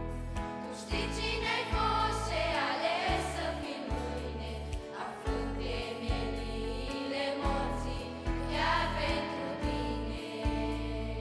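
A teenage choir singing a Romanian worship song together, with instrumental accompaniment and a steady bass line under the voices.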